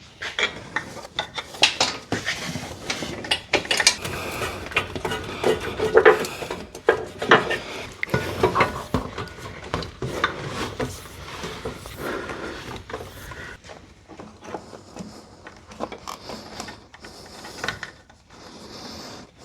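Heavy battery cables being handled and fed through the front of a vehicle: irregular rubbing and scraping with scattered clicks and knocks.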